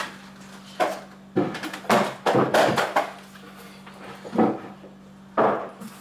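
A small freezer cabinet being set down and shifted into place on a wooden board stand: a series of knocks and scrapes, busiest around two to three seconds in, with a last knock near the end. A steady low hum runs underneath.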